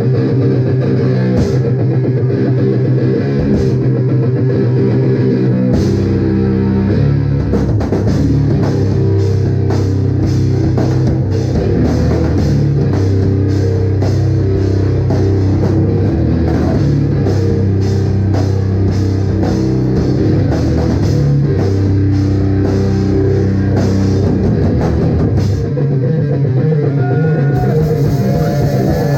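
Live rock band playing loud: electric guitar and drum kit, the drumming getting busier about six seconds in.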